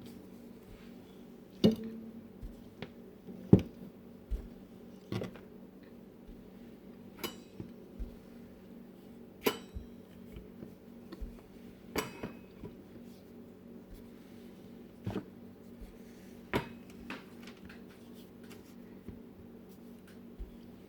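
A heavy marble rolling pin working dough on a counter: irregular sharp knocks and clacks, about one every second or two, over a steady low hum.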